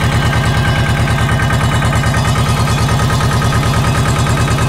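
Small diesel tractor engine running steadily with a rapid, even beat.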